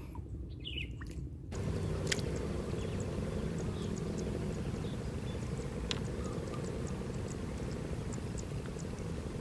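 Steady low outdoor rumble with a faint hum and scattered small ticks, which gets suddenly louder about a second and a half in.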